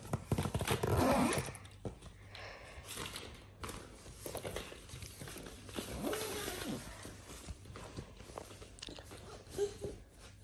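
A toddler's short wordless vocal sounds, once near the start and again about six seconds in, with scattered light knocks and rustles in between.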